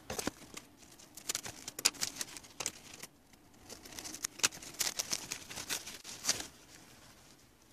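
Paper towel wrapping rustling and crackling in quick, irregular clicks as hands unwrap bundles of succulent cuttings; the crackling stops a little after six seconds in.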